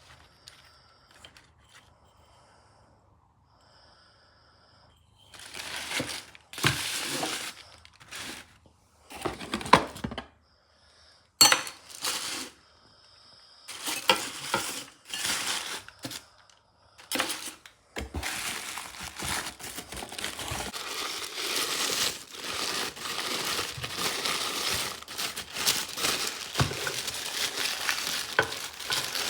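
Packaging being handled: plastic and cardboard crinkling and rustling in short separate bursts, with a sharp clink partway through, then crinkling steadily for the last ten seconds or so.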